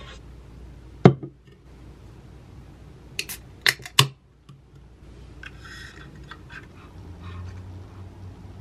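Aluminium drink can handled on a wooden desk. A sharp knock about a second in, then three sharp clicks as the ring-pull is worked and popped open, followed by a short hiss.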